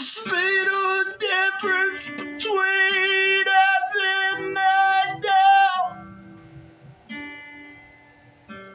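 A man singing long, wavering notes over a strummed steel-string acoustic guitar. The voice stops about six seconds in, and two more guitar chords are struck and left to ring out.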